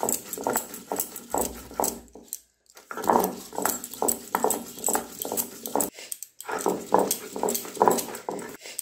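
Stone roller of a sil-batta grinding fresh thankuni leaves on a flat stone slab without water: a quick run of rolling, scraping stone-on-stone strokes, about three or four a second, breaking off briefly twice.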